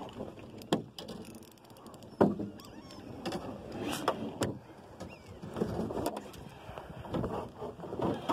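A spinning fishing reel being cranked in several short spells, with a few sharp knocks, the loudest about two seconds in.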